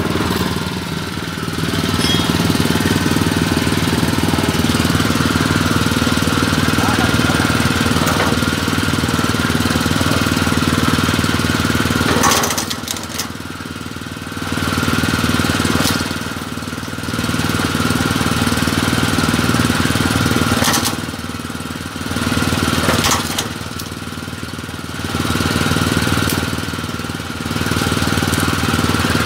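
Coconut-shell peeling machine running, its rotating cutter drum grinding and scraping against a coconut held to it. The noise swells and drops back several times through the second half as the coconut is pressed on and eased off.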